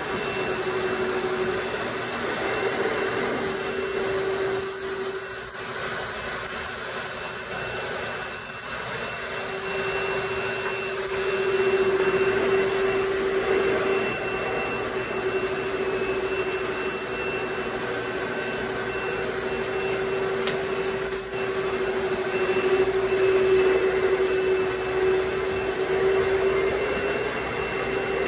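Electric blower motor running with a steady high whine over a rush of air. The whine weakens for several seconds about four seconds in, with two short breaks, then steadies again.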